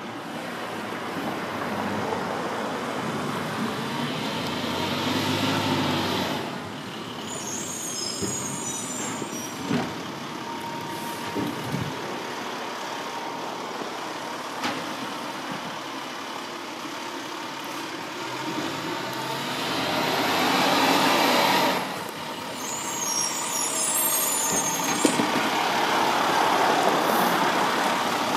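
International WorkStar garbage truck with a Labrie side-loading body: its diesel engine revs up and drops off sharply twice, each time followed by a sputtering hiss of air brakes as the truck stops at the next carts. A few short knocks come in between.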